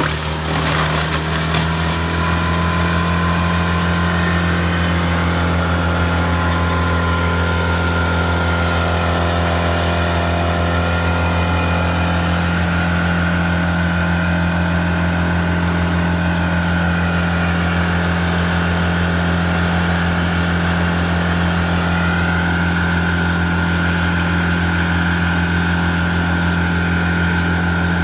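Morbark Model 14 Blizzard drum chipper's 142 hp Perkins diesel engine running at a steady speed, with a steady high whine over the engine note. A brief clatter sounds in the first couple of seconds.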